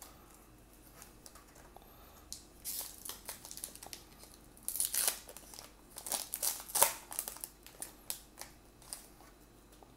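Crimped wrapper of a trading-card pack crinkling and tearing as it is ripped open and the cards are pulled out. The sound comes in several short bursts, starting about two and a half seconds in.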